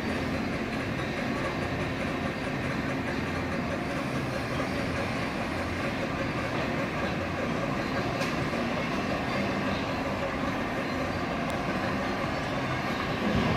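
Small amusement-park ride train crossing a steel truss bridge: a steady rumble of the train running on its track.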